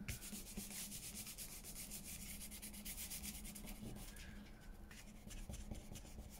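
Hand rubbing over paper, smoothing a freshly glued sheet down flat: a faint, steady dry rubbing.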